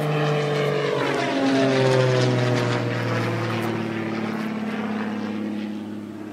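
A passing motor with a steady humming note that drops in pitch from about a second in as it goes by, then fades toward the end.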